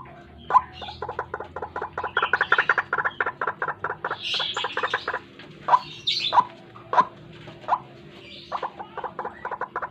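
White-breasted waterhen (ruak-ruak) calling, the recording used as a trapping lure. It gives fast runs of short, repeated croaking notes, several louder single notes spaced a little under a second apart in the middle, and a few higher squealing notes, over a faint steady hum.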